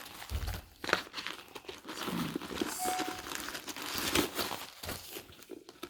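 Crinkling and rustling of packing material, with small clicks and knocks from handling, as a new leather shoulder bag is opened to look inside.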